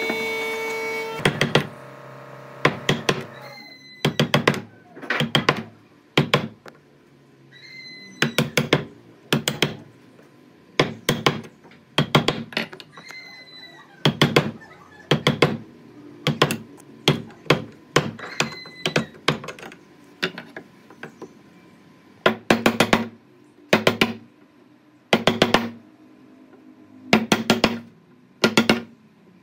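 Music ends about a second in. Then comes hammering on wood: sharp knocks in quick clusters of two to four blows, every second or two, some with a brief metallic ring.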